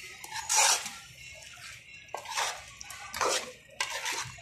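Metal spoon scraping and stirring against a metal pan as chicken in a thick tomato and spice masala is turned over, in four scraping strokes about a second apart.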